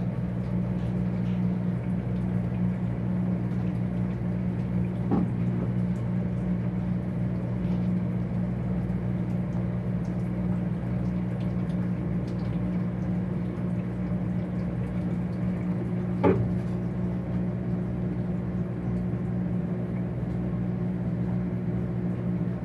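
Brastemp BWK 15 kg washing machine's electric motor running with a steady, even hum, with two short knocks, one about five seconds in and one about sixteen seconds in.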